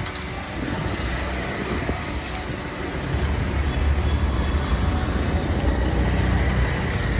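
Road traffic passing: a steady low rumble of vehicle engines, a little louder from about three seconds in.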